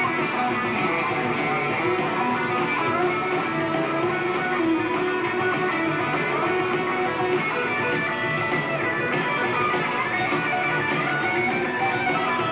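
Live rock band playing an instrumental passage with no singing: electric guitars to the fore over bass and drums, with a steady beat.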